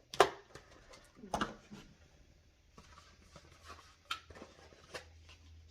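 Small plastic parts of a saliva DNA test kit (collection tube and cap) being handled: a sharp click just after the start, another about a second and a half in, then a few softer taps and ticks.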